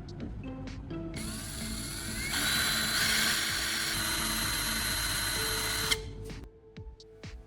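Small electric drill spinning up with a rising whine, then boring steadily into a metal nut for about three and a half seconds before stopping abruptly. Background music plays throughout.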